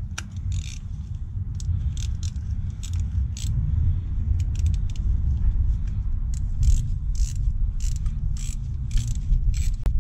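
Small metal clicks and clinks of a hand tool working on a motorcycle rear brake caliper as the pad retaining pin is wound in and tightened. The clicks come about twice a second in the second half, over a steady low rumble.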